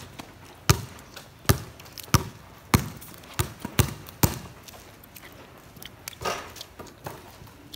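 A basketball dribbled on a wet concrete court: about seven sharp bounces, roughly two a second, that stop about halfway through.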